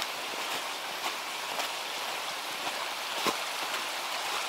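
Steady rushing of river water over a small waterfall cascade, with a few soft crunching footsteps in deep snow, the clearest about three seconds in.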